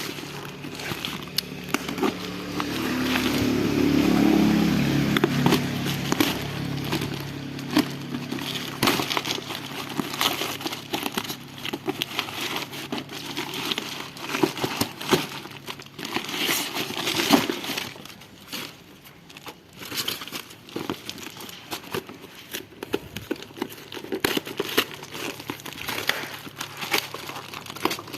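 Plastic packaging crinkling and rustling as it is handled and unwrapped, with many scattered small clicks and knocks.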